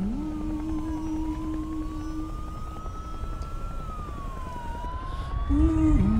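A siren wails slowly up and down over a low rumble. A low sustained note from the film score holds for the first half, and a stepping melody returns near the end.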